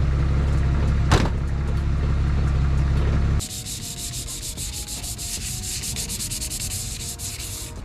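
A steady low rumble, then, about three and a half seconds in, sandpaper rubbing back and forth over cured Bondo body filler on a car hood in quick, even strokes, several a second.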